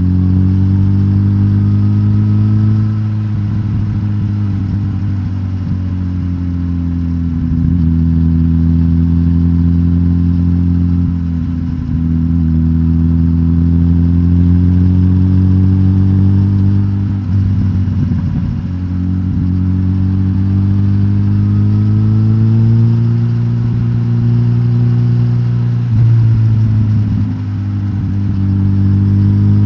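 Suzuki GSX-S1000GT's inline-four engine, catalytic converter removed and stock exhaust kept, running steadily under load. Its note climbs slowly, then drops sharply about four times, as at gear changes.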